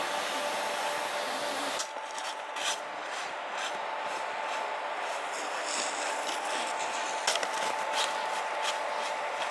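Skis scraping over packed snow on a mogul run, a rough rasping hiss with short sharp scrapes at the turns, over a faint steady hum. The sound changes abruptly about two seconds in.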